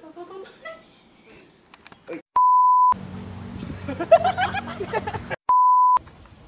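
Two edited-in censor bleeps, each a steady high beep tone about half a second long that blanks out everything else. They come about two and a half seconds in and again about five and a half seconds in, cutting over bits of talk.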